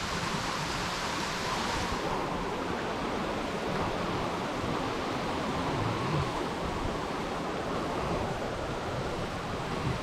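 Steady rushing noise of wind and water outdoors, with no distinct events; the high hiss thins out about two seconds in.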